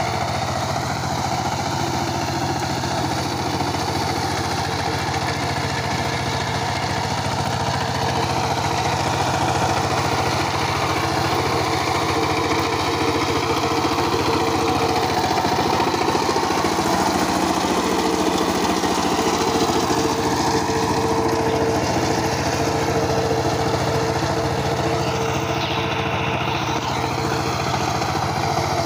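Two-wheel power tiller's single-cylinder diesel engine running steadily under load as its rotary tiller works dry stubble soil. A steady whine joins the engine past the halfway point.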